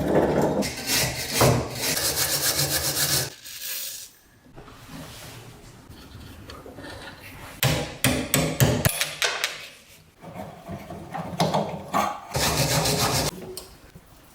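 Rasping, rubbing strokes, like filing or scraping worn metal and wood, in three loud spells with quieter stretches between.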